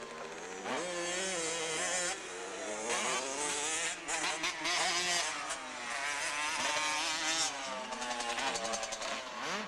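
80cc two-stroke motocross bike engine racing around a dirt track, its pitch repeatedly climbing and falling as the rider works the throttle and shifts gears.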